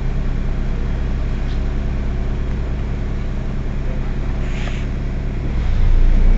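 Heuliez Access'Bus GX 127 city bus's diesel engine idling steadily at a stop, with a short hiss about four and a half seconds in. The engine gets louder near the end, as the bus is about to pull away.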